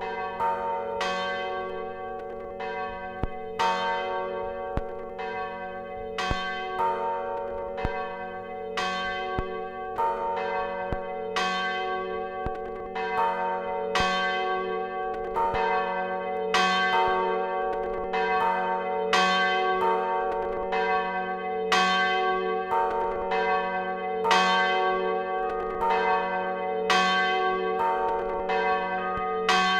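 Church bells pealing: several bells struck one after another, about one strike a second, over the steady hum of the bells still ringing.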